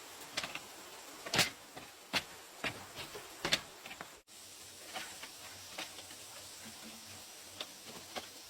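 A series of irregular sharp clicks and knocks, several close together in the first half and sparser after a brief dropout a little past the middle, over a steady hiss.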